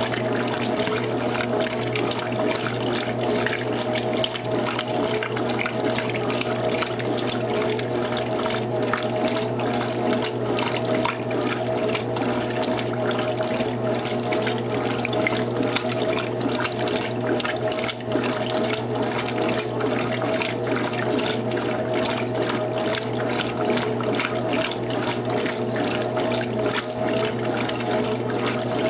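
Electrolux Top 8 top-loading washing machine in its rinse cycle: steady rushing, sloshing water with a steady mechanical hum underneath.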